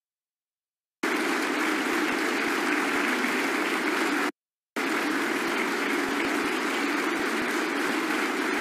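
Sustained applause from a chamber full of lawmakers clapping together. The sound cuts out to dead silence for about the first second and again for a moment about four seconds in.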